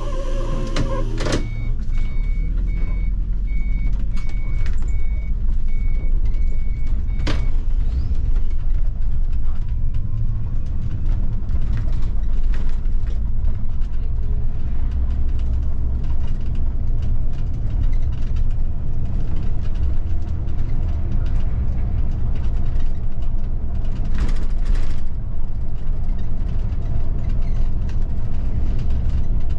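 Bus driving, heard from the driver's cab: a steady engine and road rumble. A repeated electronic beep sounds between about two and seven seconds in, and a couple of sharp clicks come around one and seven seconds in.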